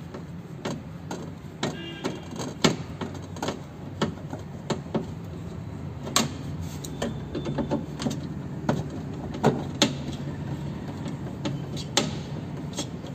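Scattered clicks and light metallic knocks from a screwdriver working the screws that hold the window glass to the power window regulator inside a car door, over a steady low hum.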